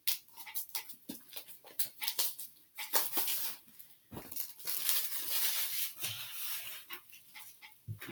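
Plastic shrink-wrap being peeled off a product box and crinkled in the hands: irregular crackles and rustles, with a longer stretch of crinkling near the middle.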